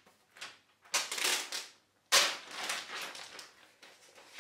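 Thin protective plastic envelope crinkling and rustling as it is slid off a MacBook Pro's aluminium body. It comes in several crackly bursts, the loudest starting sharply about two seconds in and fading out.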